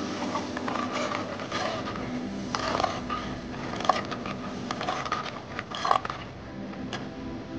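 Kitchen utensils clinking and scraping against a pan in a few sharp strikes and short scrapes, over soft background music.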